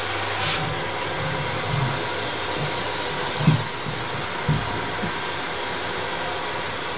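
A steady rushing noise, with two dull knocks about three and a half and four and a half seconds in.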